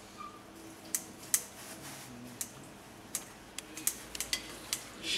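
Kitchen scissors and fingers clicking and clinking against a thin aluminium plate while cutting up boiled lamb's head meat: scattered sharp ticks, the sharpest a little over a second in, coming more often in the second half.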